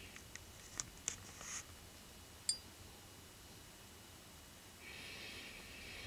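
Quiet ambience beside a blackbird nest: a few soft clicks in the first second and a half, then a single short, sharp, high bird call about two and a half seconds in, and a soft hiss lasting about two seconds near the end.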